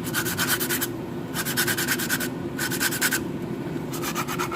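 Abrasive rubbed back and forth by hand over a car starter motor's rough armature to make it smooth again, the rough surface being the cause of the starter's grinding noise. Quick scraping strokes, about eight a second, come in short runs with brief pauses.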